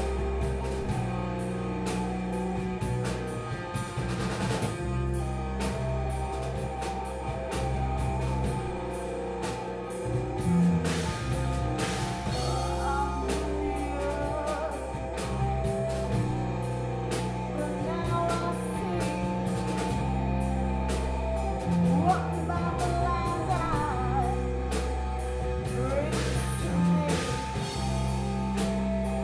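Live rock band playing: electric guitars and a drum kit, with a woman singing into a microphone over them.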